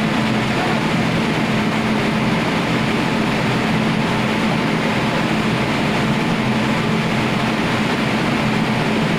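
Steady low hum of a ship's machinery at anchor, with an even rushing noise of wind and sea over it.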